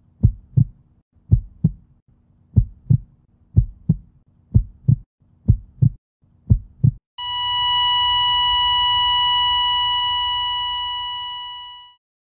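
Heartbeat sound effect: about seven low double thumps, roughly one pair a second, then a long steady high beep like a heart monitor flatlining, which fades out over its last second.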